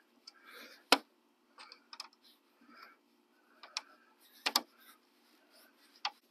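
Sharp clicks and light taps of a small LED grille light and hand tool being worked into the slots of a truck grille, about half a dozen in all, the loudest about a second in and near the middle, with faint scraping between them.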